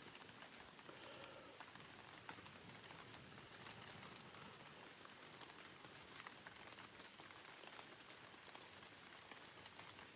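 Faint, steady rain falling, with scattered drops ticking here and there.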